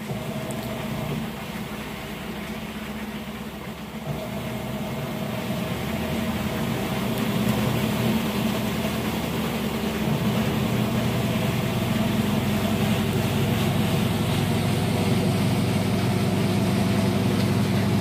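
Toshiba AW-J800A-PH top-load washing machine in its fast spin cycle: a steady motor-and-drum hum that grows louder over the first several seconds as the drum speeds up, then holds steady, running stable without knocking.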